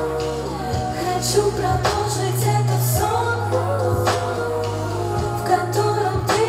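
A woman singing into a microphone over a slow pop backing track, with long held bass notes that change about once a second.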